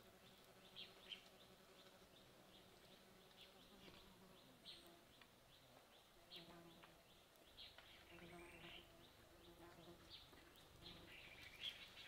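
Faint forest ambience: scattered short, high bird chirps, with an insect buzzing faintly now and then from about the middle on.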